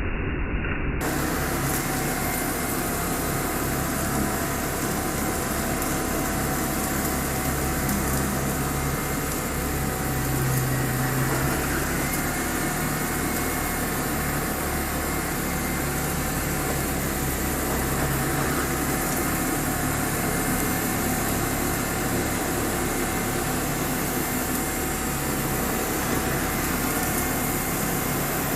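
Hoover S3639 WindTunnel Plus canister vacuum running steadily with its power head: a steady rush of air with a faint constant whine.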